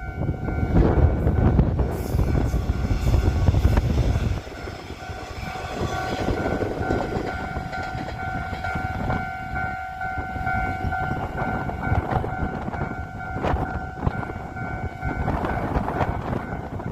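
Electric train passing close over a level crossing with a loud rushing rumble and wind blast that cuts off abruptly about four seconds in. The crossing's warning bell keeps ringing with a steady pulsing tone afterwards and stops shortly before the end.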